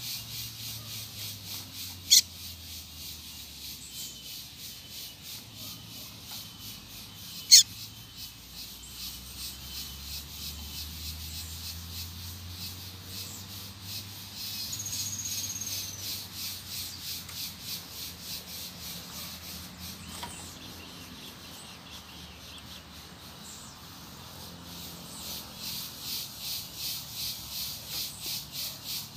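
Insects calling in a steady pulsing rhythm, with two sharp, loud bird call notes about two and seven seconds in and a short high trill about halfway through.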